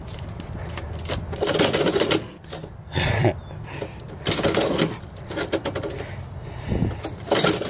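Metal door mail slot flap clattering and envelope paper rustling as mail is shoved in and a cat pushes it back out, in several separate bursts.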